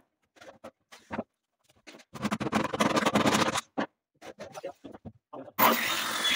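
Irregular scraping and knocking of hands and tools working on wooden cabinets, then a little over five seconds in a corded electric drill starts up and runs steadily.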